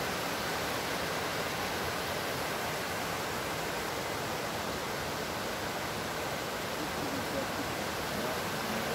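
Mountain stream running over rocks and small cascades: a steady rushing of water.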